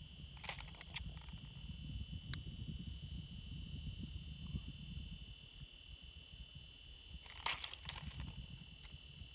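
Low wind rumble on an outdoor microphone under a steady high-pitched whine, with a few light clicks and rustles of small fishing gear being handled, the loudest cluster near the end.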